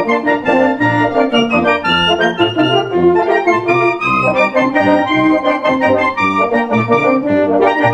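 Instrumental music with sustained, organ-like chords over a stepping bass line and a melody in short notes.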